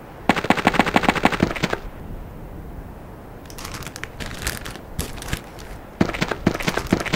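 Automatic gunfire sound effect: two rapid bursts of machine-gun fire, each about a second and a half long, with scattered lighter clicks between them.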